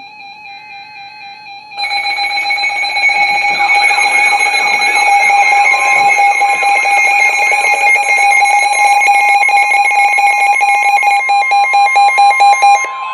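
Weather radio alert alarm sounding for a severe thunderstorm warning. A quieter steady tone is followed, about two seconds in, by a much louder layered mix of steady and warbling, rapidly pulsing alarm tones. A further steady tone joins a few seconds later.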